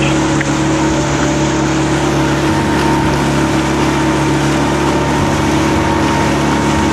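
Small boat's engine running steadily under way at cruising speed, a constant low hum, with the hiss of water rushing past the hull.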